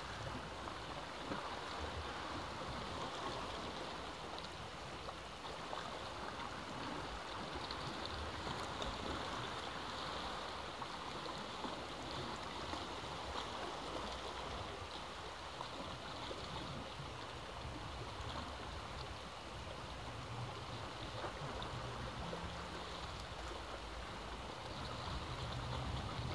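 Sea waves washing against the rocks at the foot of a sea cliff: a steady rushing of surf with no distinct breaks, and a low rumble swelling near the end.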